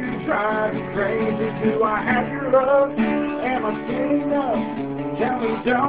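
Acoustic guitar strummed in a slow country ballad, with a man singing over it.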